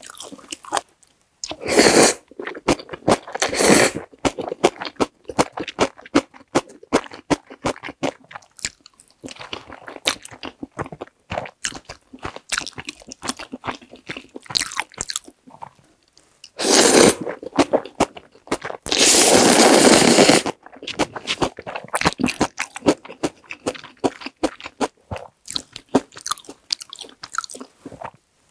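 Close-miked chewing and wet mouth sounds of someone eating black bean sauce instant noodles, with several loud noodle slurps. The longest slurp runs about a second and a half, roughly two-thirds of the way through.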